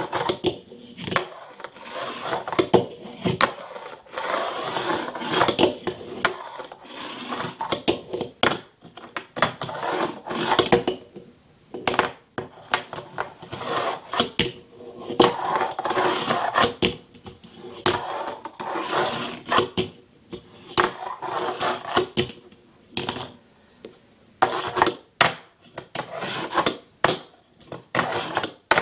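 Fingerboard rolling and grinding on a hard surface, with many sharp wooden clacks as the small deck is popped and lands, between stretches of wheel and truck scraping.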